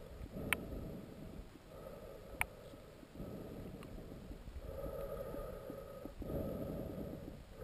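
Muffled underwater rumble of river current heard through a GoPro's sealed waterproof housing, swelling and fading in waves. Two sharp clicks come near the start, about two seconds apart.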